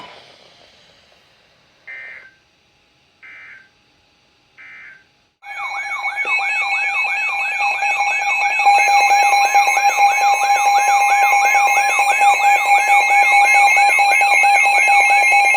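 Three short buzzy digital data bursts (EAS/SAME alert codes) from a NOAA weather radio broadcast. About five seconds in, the Midland WR-100 weather radio's alert alarm goes off: a loud warbling siren, about two or three warbles a second, over a steady tone, signalling an incoming alert.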